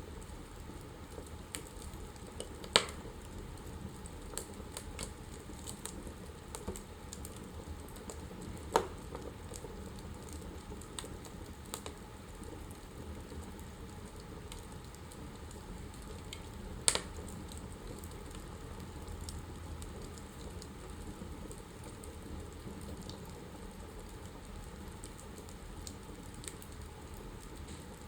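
Wood fire burning in a fireplace, crackling with many small irregular ticks over a steady low rush. Three louder sharp pops come about three, nine and seventeen seconds in.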